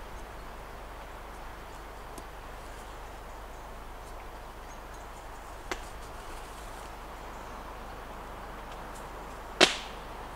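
Jute twine being wound and pulled tight around a bent hazel hoop, over a steady background hiss. There is a small click about halfway and one loud, sharp snap near the end.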